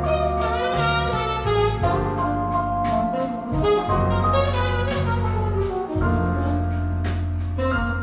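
A jazz recording with saxophone over a bass line, played back through Boston Acoustics M350 tower loudspeakers and picked up in the listening room.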